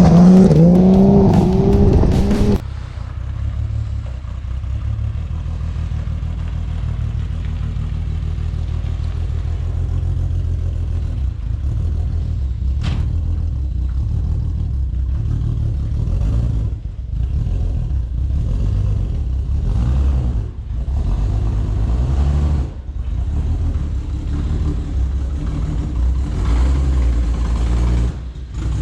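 Car engine running at idle, a dense low pulsing note with brief throttle changes a few times in the second half, after a short burst of music at the start. The engine is the 1JZ straight-six in a VH Commodore, which the owner says has developed a miss.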